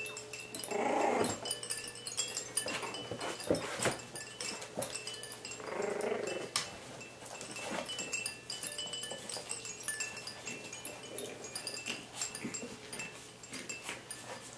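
Young Coton de Tulear puppies making small growling noises as they play-fight, twice, about a second in and about six seconds in, with scratching and scrabbling on the bedding. A toy mobile's tinkling chime melody plays underneath.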